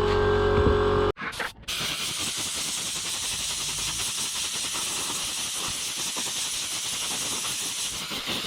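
A steady mechanical hum stops abruptly about a second in. After a short break, a spray gun hisses steadily as it lays on the metallic black colour coat.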